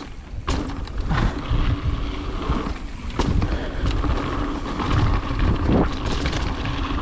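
Wind rushing over the microphone of a mountain bike rider's camera, with tyre noise from the dirt trail and scattered knocks and rattles from the bike over bumps.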